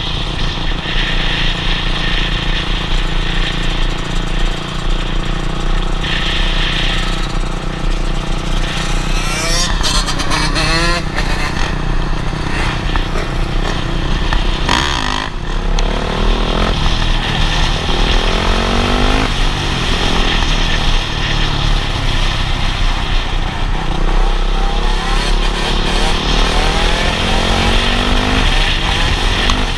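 Dirt bike engines running on the road, revving up and down several times in the middle of the stretch as the riders throttle and shift. A heavy low rumble, typical of wind on a bike-mounted camera, runs under the engines.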